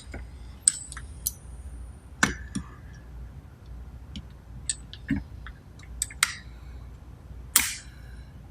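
Steel parts of a thread rolling attachment clinking and tapping together as they are handled and fitted during reassembly: a scattering of short metallic clicks, the loudest near the end.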